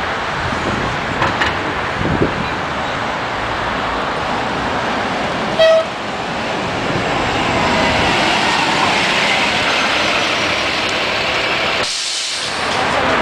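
A city transit bus's diesel engine running as the bus drives up, passes close by and pulls away. A short horn toot sounds about halfway through.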